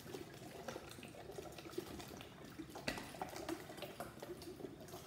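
Water draining from one 2-liter plastic bottle into another through a bottle connector, faint, with small ticks throughout and one sharp knock a little before three seconds in as the bottles are handled.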